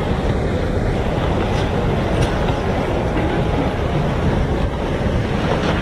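Loud, continuous rumbling noise, strongest in the low end and steady, with no clear rhythm.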